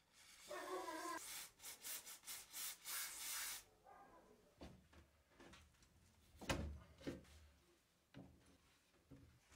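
Aerosol penetrating-oil can sprayed through its straw onto a rusted nut and shaft, giving a string of short hissing bursts over the first few seconds. Then come a few metal knocks and clinks, the loudest about two-thirds through, as a spanner is fitted to the nut.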